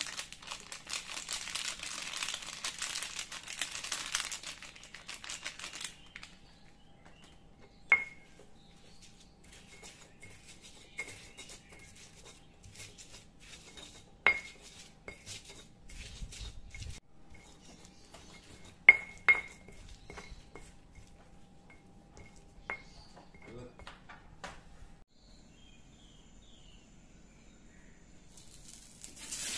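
A metal spatula stirring and scraping a spice paste around a wok, first in a busy stretch of scraping, then with several sharp ringing clinks as it strikes the pan, two in quick succession, and light ticks between. Just before the end, a hiss of frying starts.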